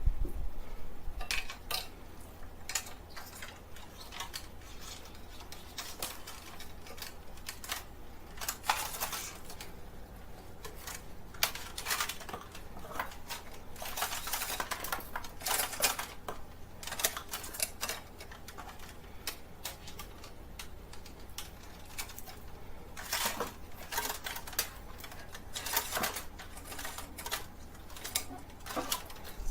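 Irregular clicks and light clatter of hard objects being handled, coming in clusters, over a low steady hum.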